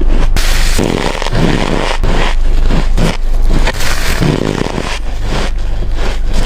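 Ice cubes being bitten and crunched in the mouth close to the microphone: squeaky, crunchy bites, one or two a second.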